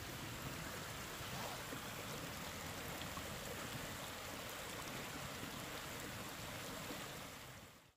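Steady rushing of a rocky creek's running water, fading out near the end.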